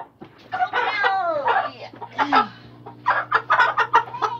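Domestic chicken squawking in alarm as it is caught by hand: loud harsh squawks with a falling pitch about a second in, then a rapid run of squawks near the end.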